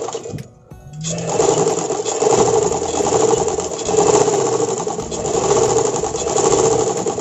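Motor-driven antique Singer sewing machine stitching fabric at speed, with a brief pause just after the start before it runs on steadily. This is a test run after its timing was adjusted to cure skipped stitches.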